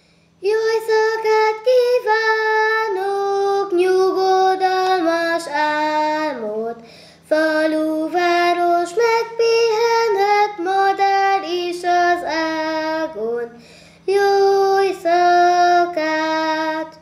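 A young girl singing alone, unaccompanied, in three phrases with short breaths between them. A faint steady hum runs underneath.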